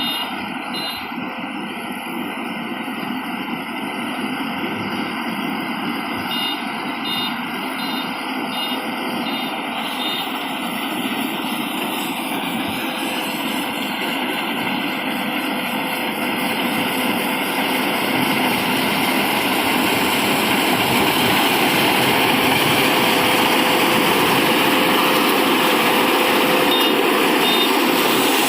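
Zoomlion rice combine harvester running as it works, a steady mechanical din growing gradually louder. Groups of short high beeps repeat during the first ten seconds or so and again briefly near the end.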